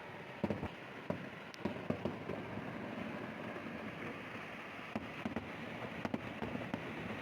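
Fireworks going off: irregular sharp bangs and crackles, thickest between about half a second and two seconds in and again around five to six seconds in, over steady background noise.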